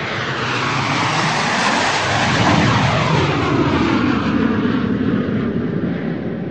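Airplane flying past overhead: a loud engine rush that swells, falls in pitch as it passes, and fades toward the end.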